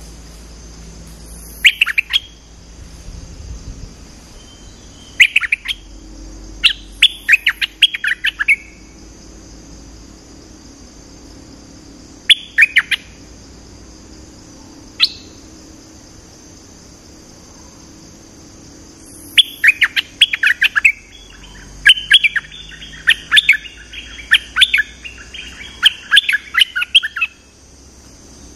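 A decoy bulbul singing: short, loud clusters of sharp chirping notes a few seconds apart, then a longer run of rapid chattering phrases in the last third.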